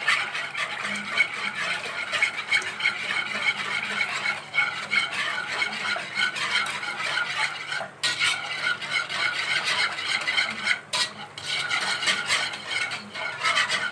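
A utensil stirring fast and continuously in a pot, scraping and clicking against its sides. It is breaking up lumps as milk is worked into a flour-and-ghee roux for béchamel, with brief pauses about 8 and 11 seconds in.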